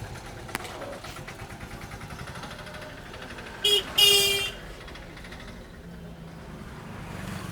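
A vehicle horn honking about four seconds in: a short toot, then straight after a longer one. Steady street-traffic noise runs underneath.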